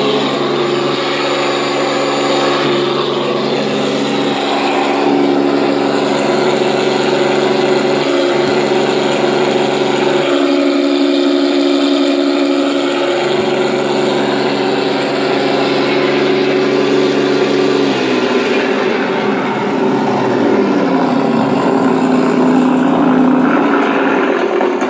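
Simulated warbird piston engine sound from a Sense Hobby ESS sound module, played through transducers that vibrate the foam airframe of an FMS 1500mm P-47 model. It runs steadily, then falls and rises in pitch like a throttle change from about 18 seconds in.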